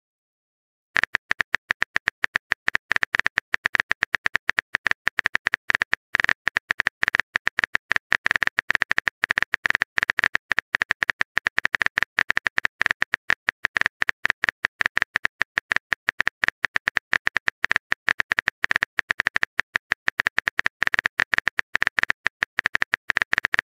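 Typing sound effect: a fast, steady run of sharp keyboard clicks, many a second, starting about a second in.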